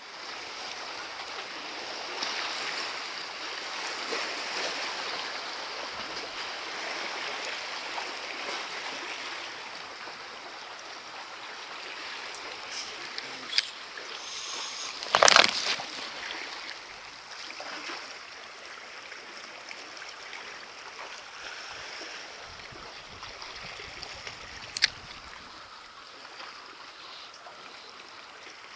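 Sea water sloshing and lapping steadily against a harbour breakwater, with a brief louder rush about halfway through and two sharp clicks, one just before it and one near the end.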